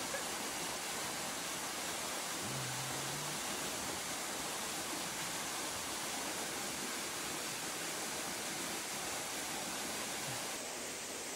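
Steady rushing of creek water flowing through a rocky gorge, an even hiss with no breaks.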